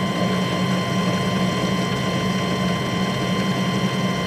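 Metal lathe running steadily with a constant gear whine, its parting tool cutting into the spinning workpiece with oil being brushed on.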